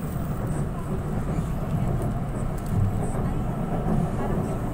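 Steady low rumble inside an LRT Line 2 light-rail car running at speed on its elevated track.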